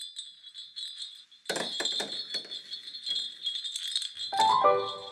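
Large metal jingle bells hanging on a door jingling, with a louder, fuller jangle about a second and a half in. Piano music begins near the end.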